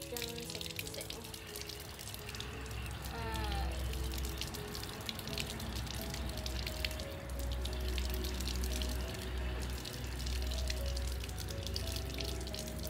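Water splashing and dripping from a tap as a baby monkey's hands and feet are washed, over background music.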